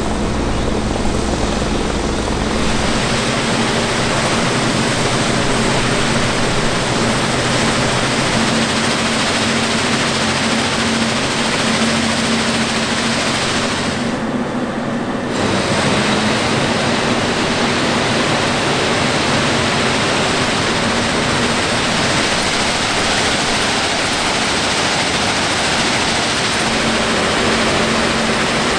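Plasser & Theurer RMW 1500 ballast cleaning machine at work: a dense, steady rushing noise of its excavating chain, screens and conveyors handling ballast, over a steady hum from its power units. The sound goes briefly duller about halfway through.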